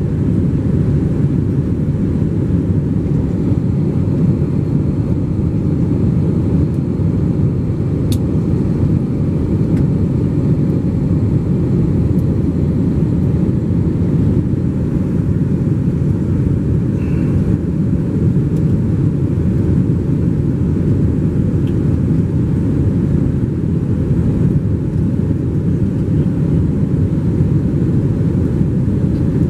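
Steady low rumble of an Airbus A321 in flight heard from inside the passenger cabin: engine and airflow noise. There is a faint click about eight seconds in.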